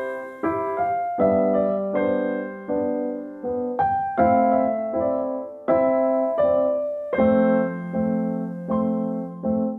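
Solo piano playing slow, separate chords and notes, each struck and left to ring and fade.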